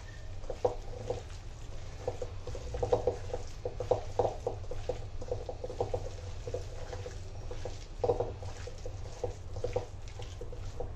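Wet, irregular squelching of barramundi pieces being kneaded by hand in a steel bowl with a thick masala paste and rice flour, over a steady low hum.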